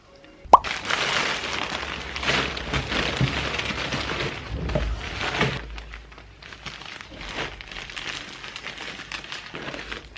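A sharp pop about half a second in, then irregular rustling and crinkling that grows quieter after about six seconds.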